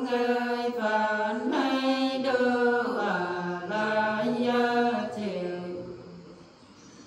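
Women singing a Nùng folk song unaccompanied, in long held notes that step from pitch to pitch in a chant-like line. The phrase ends and dies away about six seconds in.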